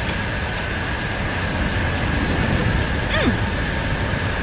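Steady low rumbling background noise with no rhythm, and a short falling voice-like sound about three seconds in.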